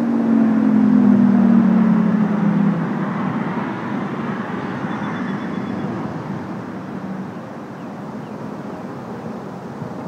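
Federal Signal Thunderbolt outdoor warning siren winding down at the end of its three-minute alert test, its low tone falling in pitch and dying out about three seconds in. A steady wash of distant road traffic carries on, slowly fading.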